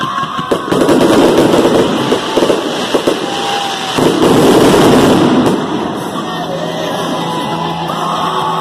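Aerial fireworks bursting overhead in quick succession, a rapid run of sharp cracks and crackling, loudest about a second in and again around four to five seconds in, then easing off near the end.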